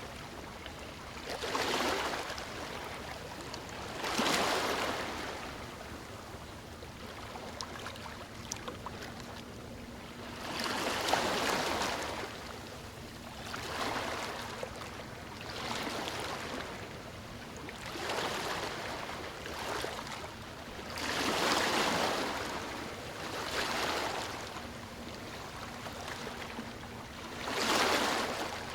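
Sea waves breaking and washing ashore in repeated surges, each swelling and fading over a second or two, a few seconds apart, over a constant background wash.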